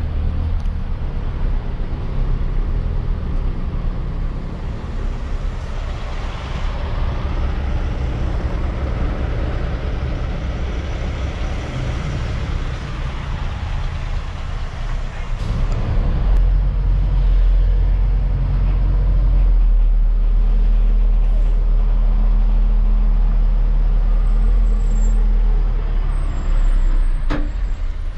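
Hino 500 truck's diesel engine running while driving, heard from inside the cab as a steady low drone. About halfway through the drone gets louder and holds level; a single click comes near the end.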